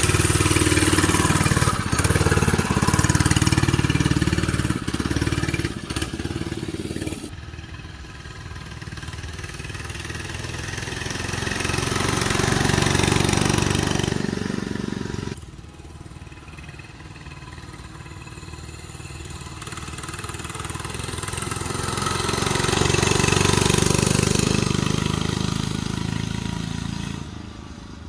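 Homemade mini bike's small engine running, loud and close for the first several seconds as it pulls away. It then swells and fades twice as the bike rides past and away.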